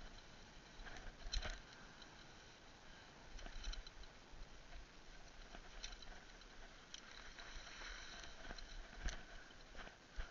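Faint scattered knocks and clicks over a steady low hiss, with a few louder thumps.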